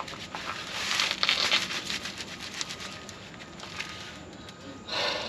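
Rustling and crinkling with scattered light clicks, loudest about a second in: cardboard shifting under someone lying beneath a pickup as he handles the rear driveshaft to check the U-joint for play.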